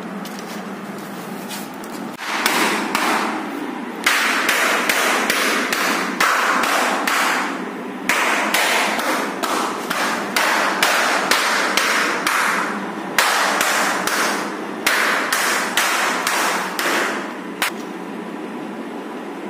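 Repeated sharp knocks like hammering, about two or three a second, in runs of a few seconds, stopping with one last knock near the end.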